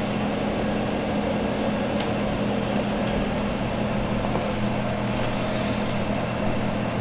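Pellet stove's fans running: a steady, even hum with a low drone.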